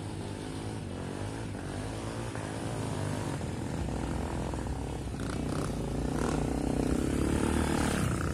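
Off-road motorcycle engine running under load, its pitch wavering with the throttle and its sound growing steadily louder.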